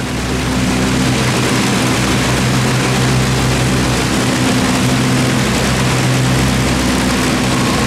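Avro Lancaster's Rolls-Royce Merlin piston engines running, a loud steady drone with an even low hum.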